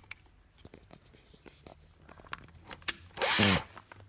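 A power drill run in a short burst of about half a second, about three seconds in, its motor pitch falling as it spins down. Light clicks and knocks of the tool being handled come before it.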